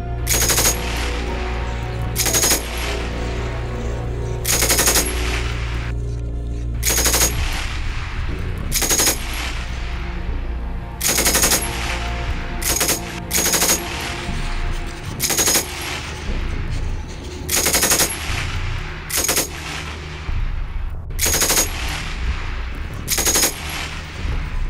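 Short bursts of machine-gun fire, about a dozen of them, one every two seconds or so, over sustained background music.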